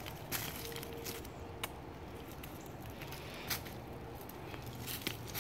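Scattered crunches and clicks of shoes shifting on loose railroad-ballast gravel, a few sharp ones standing out against a quiet background.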